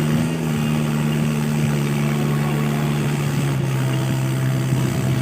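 Tractor engine running steadily while travelling, its pitch easing down slightly in small steps as the revs drop.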